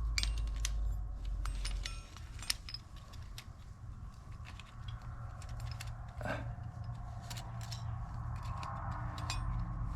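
Small metallic clicks and light rattles of a throttle cable's end clip being worked by hand through the throttle housing, over a steady low hum.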